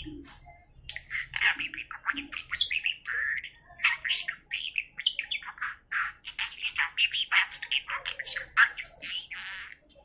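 Budgerigar chattering: a fast, nearly continuous run of chirps, clicks and warbles with mimicked human phrases mixed in, one of which the owner hears as "I can tickle your knee".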